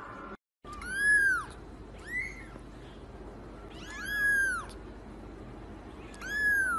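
Kitten meowing four times, high-pitched calls that rise and fall in pitch, the second one short.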